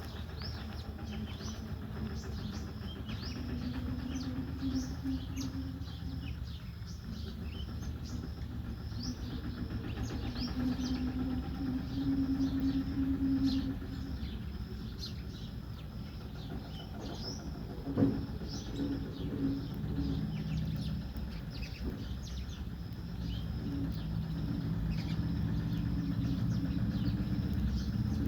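House sparrows chirping, many short quick chirps overlapping throughout, over the low hum of an engine or passing vehicles that swells and fades several times. A single sharp knock comes about two-thirds of the way through.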